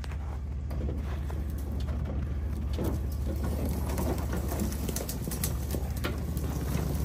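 4x4 truck crawling over a rough off-road trail: a steady low engine drone under irregular knocks, creaks and rattles from the suspension and body.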